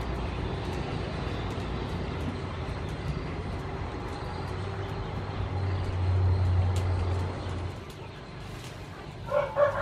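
Low engine rumble of a passing motor vehicle, swelling about six seconds in and then fading away.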